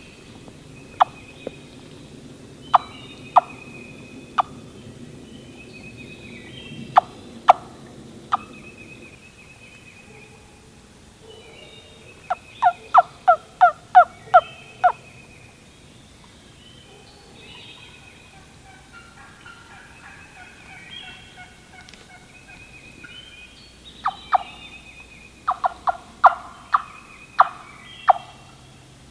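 Turkey call worked by a hunter: single clucks and yelps, then runs of loud, evenly spaced hen yelps, about three a second, to coax a gobbler into answering. Songbirds sing throughout.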